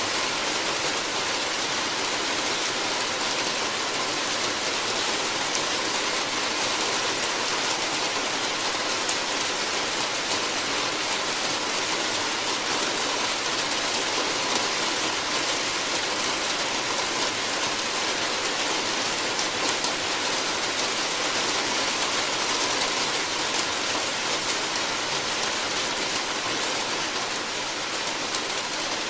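Steady rain falling on a roof, a dense even hiss of drops with fine pattering, unchanging throughout.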